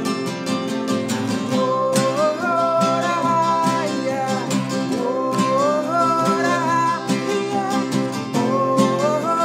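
Acoustic guitar strumming chords steadily, with a gliding, sliding melody line above it from about a second and a half in.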